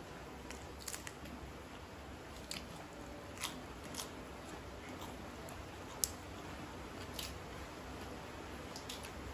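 Close-miked chewing of crisp raw lettuce and satay: scattered, irregular crunches and mouth clicks, the sharpest about six seconds in.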